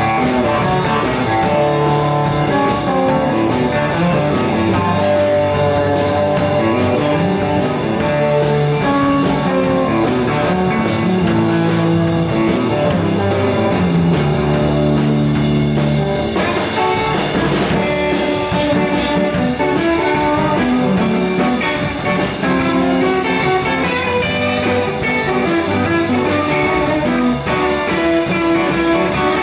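Live electric blues band playing, with electric guitars over a drum kit, loud and steady.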